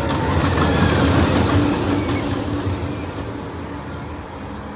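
Slinky Dog Dash steel roller coaster train running past on its track. The rolling rumble grows louder about a second in and then fades as the train moves away.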